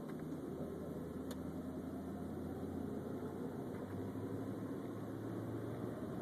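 Car engine and road noise, a steady low rumble with a faint hum.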